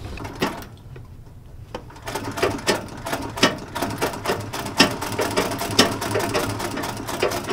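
Sewing machine stitching denim, tacking a seam in place. It starts about two seconds in as a fast, dense clatter of stitches over a steady low hum.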